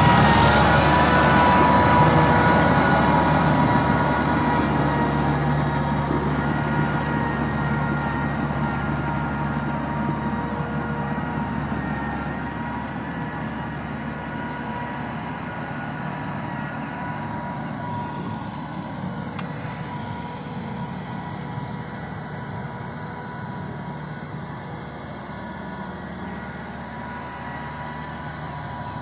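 Kubota M6040SU tractor's diesel engine running steadily as it pushes wet mud with its front blade. It fades gradually as the tractor moves away.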